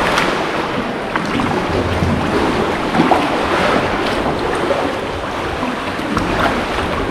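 Sea water sloshing and splashing around a kayak as it is paddled, with a few brief sharper splashes from the paddle blades.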